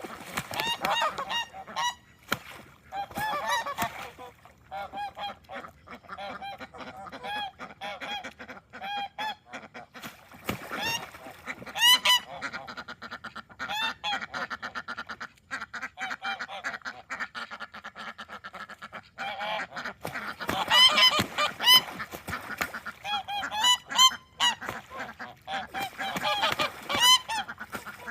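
A flock of domestic ducks and geese calling, many short calls in quick succession overlapping, loudest in clusters in the second half.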